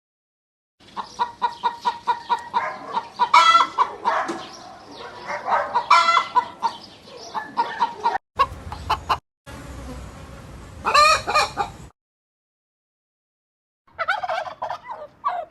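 Chickens clucking and a rooster crowing, in several short spliced clips that cut in and out abruptly, with a silent gap of about two seconds near the end.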